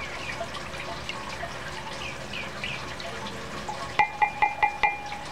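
A silicone spatula stirring lye solution in a glass Pyrex measuring cup, then lifted out and tapped about five times in quick succession against the glass, each tap ringing with a clear glassy tone.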